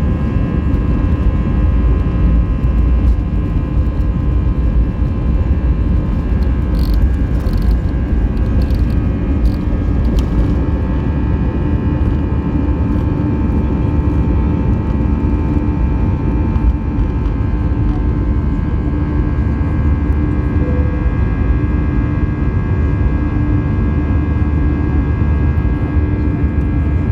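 Airbus A320 jet engines and airflow heard from inside the passenger cabin: a loud, steady rumble with several steady whining tones over it. A few light clicks come about seven to ten seconds in.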